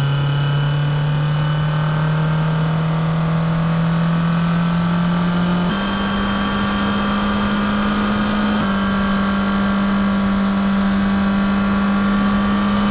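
Car engine running at steady throttle, its hum creeping slowly upward in pitch, then stepping up twice, about six and nine seconds in.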